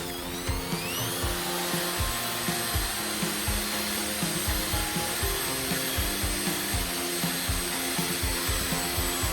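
Electric drill motor speeding up, its whine rising over about the first second and a half, then running steadily at full speed.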